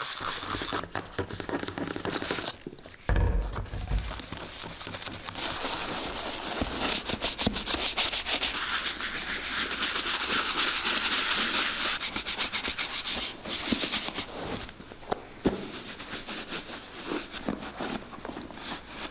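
Stiff brush scrubbing a leather work boot in a foamy lather of cleaner, with quick repeated strokes for about ten seconds. A low thump comes about three seconds in, and near the end a cloth towel is rubbed over the boot.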